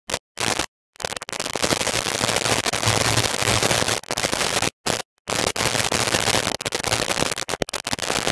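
Loud, harsh crackling static that fills every pitch, broken by sudden dropouts to dead digital silence near the start, about halfway through and briefly near the end. This is a faulty audio track rather than any real sound of the scene.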